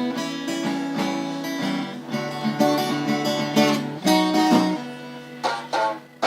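Acoustic guitar playing an old-time folk blues, picked melody notes over bass notes, with a few strummed chords near the end.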